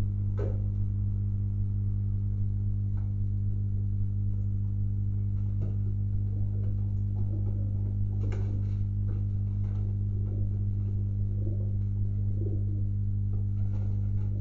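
A steady low electrical hum, with domestic pigeons cooing softly from about halfway and a few faint clicks and wing flaps of pigeons moving about the wooden loft.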